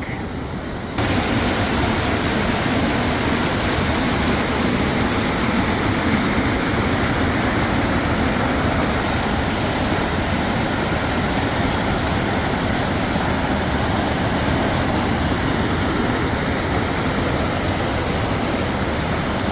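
Swift, high creek water from spring snowmelt runoff rushing steadily, a continuous loud wash of water that steps up in level about a second in.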